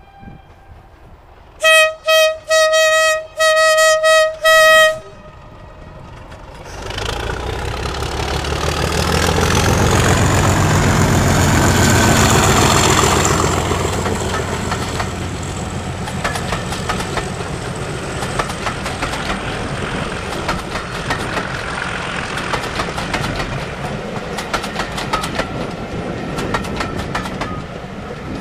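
Class 37 diesel locomotive sounding its horn in about six short blasts. It then passes close under power, its English Electric V12 engine growing loud with a rising high whistle and peaking as it goes by. Then comes the steady rumble and rapid clickety-clack of the coaches' wheels over the rail joints.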